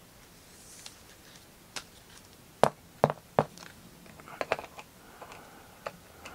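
Sharp plastic clicks and taps as a trading card in a rigid plastic top loader is handled and set onto a small card stand, the loudest three coming in quick succession about halfway in.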